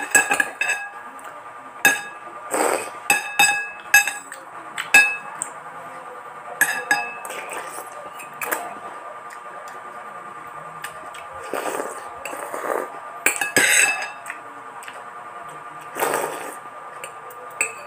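Metal spoon and fork clinking and scraping against a ceramic bowl, many short ringing clinks at an irregular pace. Between them come several short slurps as noodles are sucked up from the bowl.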